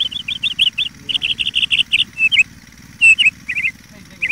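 Small bird calling close by: rapid runs of short, high chirps, about eight a second, for the first two seconds. Shorter, sparser groups of two or three notes follow in the second half.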